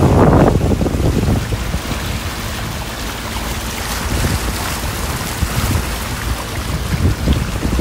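Wind buffeting the microphone over the rush of sea water around a moving sailboat, loudest at the start and again near the end, easing in between.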